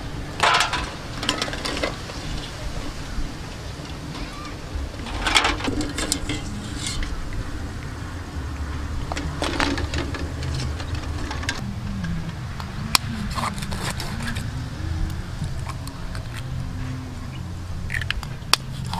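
Scattered clinks of a metal strainer against stainless-steel pots and water splashing as boiled balut duck eggs are lifted out and set into a bowl of water, over a low steady rumble. Near the end come a few sharp clicks of an eggshell being cracked.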